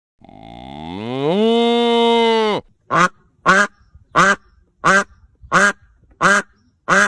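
One long animal call that rises in pitch and then holds steady, followed by a steady run of duck quacks, seven short calls about two-thirds of a second apart.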